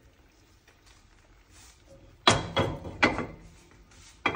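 Metal cooking utensils and cookware clattering: a quiet stretch, then a sharp clink about two seconds in, a few lighter knocks after it, and another sharp clink near the end.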